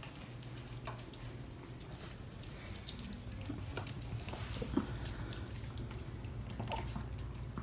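Small dog eating pâté from a stainless-steel bowl: faint, scattered licking and chewing clicks over a steady low hum.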